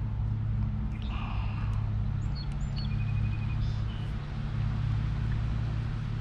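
A steady low hum, with a few short, faint bird-like chirps around the middle.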